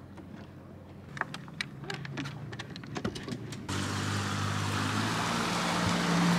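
Small outboard motor on an aluminium tender running as the boat pulls away, a steady hum with water noise that comes in suddenly about halfway through. Before it, a quieter stretch with scattered light clicks.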